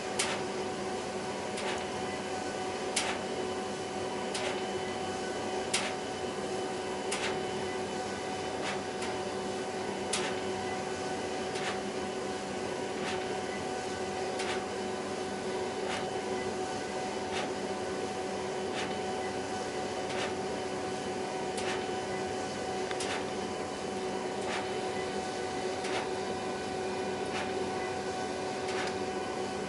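HP Designjet 5000ps large-format inkjet printer printing: a steady whirring hum, with a sharp click about every second and a half.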